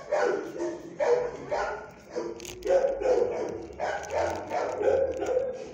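Dog barking over and over, about two barks a second.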